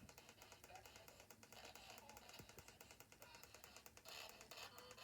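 Near silence with faint, rapid clicks.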